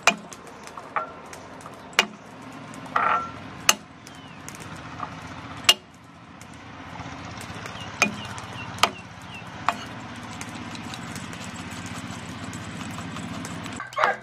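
Steel cleaver striking a wooden chopping block as it smashes and chops garlic cloves, in single sharp strikes roughly a second apart, with a quick run of chops starting at the very end. Under it runs a steady low engine-like hum that stops shortly before the end.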